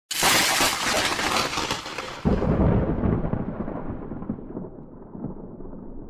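Intro sound effect: a sudden noisy crash, then a second, heavier low rumble about two seconds in, the whole sound dying away gradually like a thunderclap.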